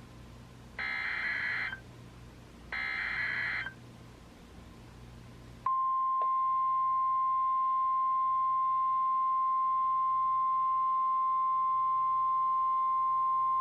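NOAA Weather Radio Emergency Alert System activation: the last two of three SAME header data bursts, each about a second of warbling digital tones. About six seconds in, the steady 1050 Hz warning alarm tone starts and holds, signalling a special marine warning about to be read.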